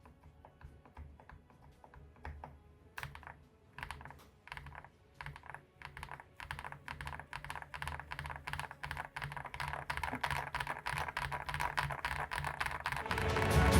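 Typing on a mechanical keyboard with Gateron Lunar Probe linear switches on their factory lube. The keystrokes start sparse and grow faster and denser after a few seconds. Near the end, music swells in.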